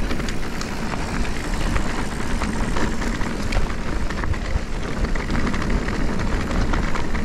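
Electric mountain bike riding down a wet trail: a steady rumble of wind on the microphone and tyres on dirt, with frequent clattering knocks from the bike over rough ground.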